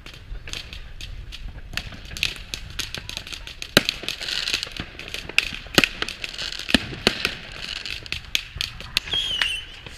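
Fireworks going off all around: a dense, irregular run of bangs and crackles, with a few louder sharp bangs in the middle. A wavering high whistle starts near the end.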